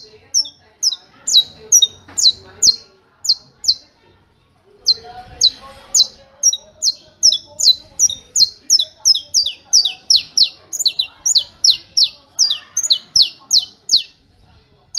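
Saffron finch singing its 'martelo' (hammer) song: a long series of sharp, repeated, high downward-slurred notes. After a short pause a few seconds in, the notes come back faster, about four a second, and stop shortly before the end.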